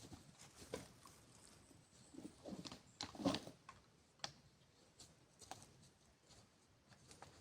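Irregular rustles and light clicks and knocks of things being handled, loudest in a short cluster about three seconds in.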